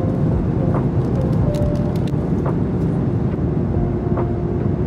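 Steady low rumble of engine and air noise inside an airliner cabin. Faint background music with held notes and a soft beat about every second and a half sits over it.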